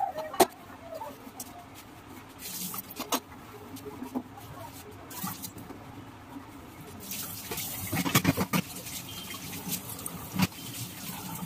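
Scattered light knocks, clicks and rubbing from a two-burner gas stove being handled and wiped down, with a busier spell of scrubbing and knocking about eight seconds in.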